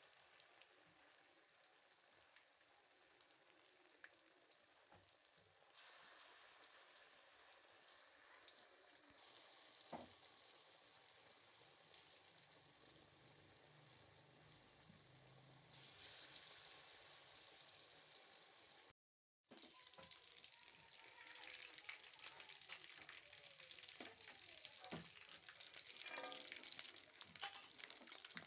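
Potato fritters in gram-flour batter deep-frying in hot oil in an aluminium kadai: a faint, steady sizzle, with a brief moment of silence about two-thirds of the way through. In the last several seconds a slotted spoon stirs the fritters, adding light scrapes and clinks against the pan.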